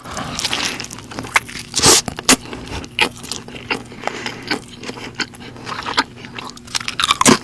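Close-miked eating: a person biting and chewing food, with many sharp wet clicks and crackles.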